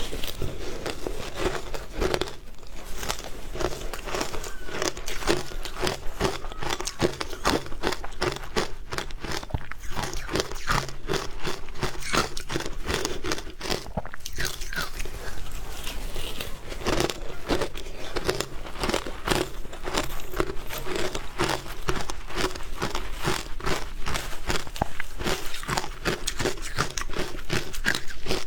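Close-miked crunching and chewing of frozen matcha ice, with rapid, crisp bites and crunches following one another throughout.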